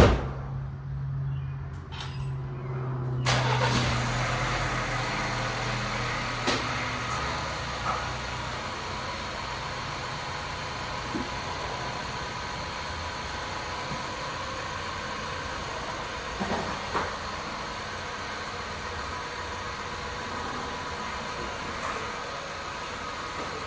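A thump, then about three seconds in a 2021 Ford Explorer's 2.3 EcoBoost four-cylinder starts up. It runs steadily as the SUV is driven back off its ramps.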